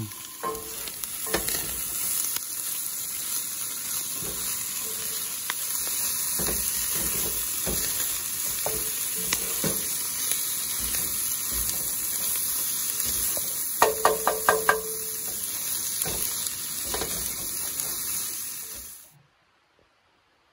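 Corned beef and onions sizzling in a cast-iron skillet, stirred and scraped with a wooden spatula. About 14 seconds in comes a quick run of five or so ringing clinks. Near the end the sizzling cuts off suddenly into near silence.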